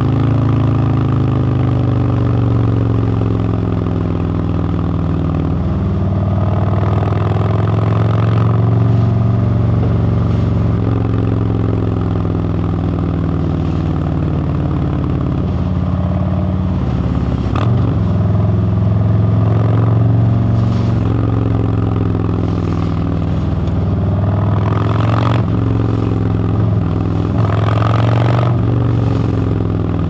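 2017 Harley-Davidson Road Glide Special's Milwaukee-Eight 107 V-twin running at highway speed. The engine note slides down over the first several seconds, then rises and falls with the throttle, over a steady rush of wind and road noise, with a few brief knocks.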